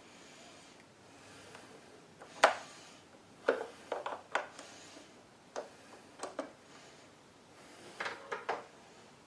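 Irregular metallic clicks and knocks of a wrench and small parts on a generator's carburetor while the float bowl is being unbolted, with one sharp knock about two and a half seconds in and small clusters of clinks after it.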